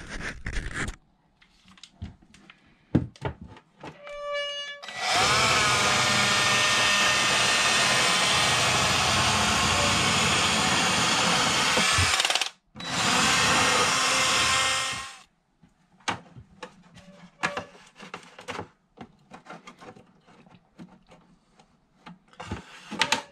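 Parkside cordless drill spinning up and running at speed for about seven seconds, stopping for a moment, then running again for about two and a half seconds while cleaning up the edge of a hole cut in a panel. Scattered handling clicks and light knocks come before and after.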